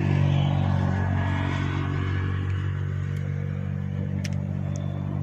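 An engine running with a steady low hum that slowly fades.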